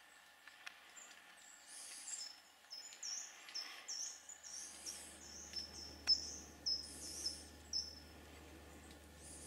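A small songbird sings a quick run of short, very high notes, and a thin, even higher call repeats about every two and a half seconds. A faint low hum joins about halfway through.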